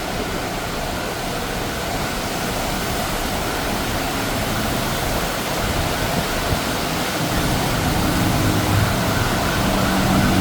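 Heavy monsoon rain falling steadily, a dense even hiss. Engine hum of road traffic comes up under it in the last couple of seconds.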